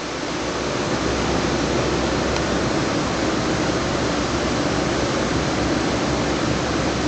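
Steady rushing noise with a faint low hum, swelling over about the first second and then holding even.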